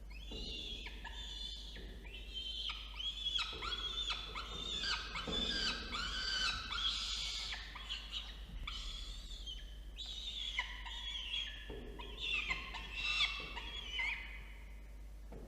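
Peregrine falcon chicks begging with high, overlapping chirps that bend in pitch, in runs with short breaks, as they are fed at the nest.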